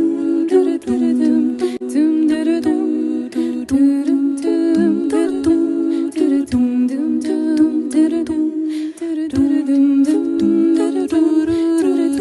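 Background music from a Russian folk song: wordless humming vocals over a steady drone, with a low beat.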